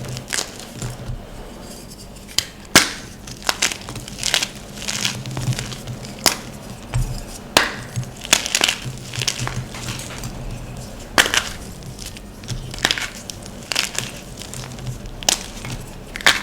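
Blocks of gym chalk crushed and crumbled by hand: repeated crunching, with a sharp crack every few seconds as a piece snaps.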